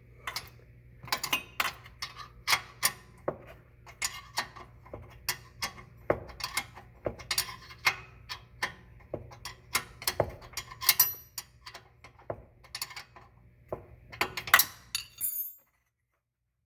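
A 13 mm wrench clicking and clinking against metal in irregular short strokes as a stubborn rear brake caliper bolt is worked loose, with a steady low hum behind it. The sound cuts out near the end.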